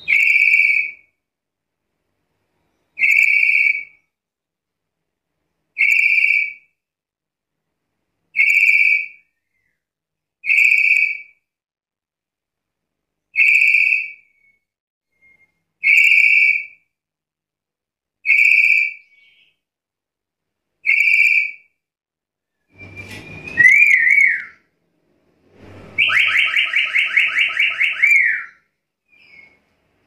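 Black-capped lory calling: nine short, loud whistled notes, one about every two and a half seconds, followed near the end by a louder wavering call and a long buzzy, rapidly trilled call.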